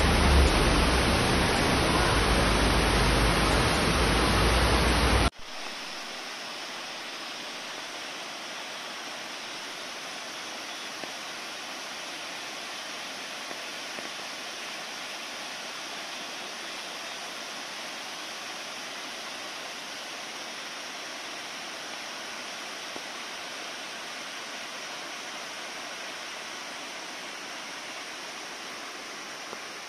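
Rushing floodwater: a loud, steady rush for about five seconds, then an abrupt cut to a quieter, even rush of muddy flood flow carrying debris.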